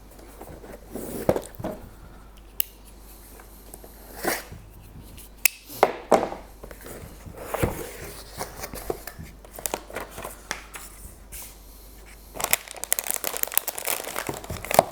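Unpacking a product box: plastic packaging crinkling and tearing, with scattered clicks and light knocks as items are handled. The crinkling gets denser and busier near the end.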